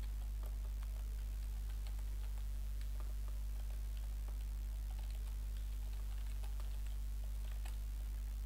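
Typing on a computer keyboard: quick, irregular keystroke clicks as a sentence is typed, over a steady low hum.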